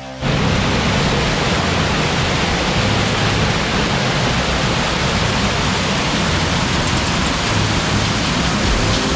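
Muddy floodwater cascading down a stone wall and steps in a steady, heavy rush.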